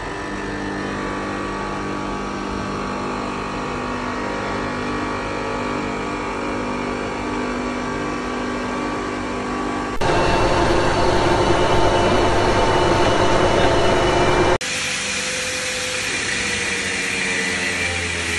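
Workshop machinery running steadily with a mix of hum and whine, cutting abruptly about ten seconds in to a louder, rougher machine noise. For the last few seconds a handheld grinder works the edge of a glass sheet under water spray, its pitch shifting as it bears on the glass.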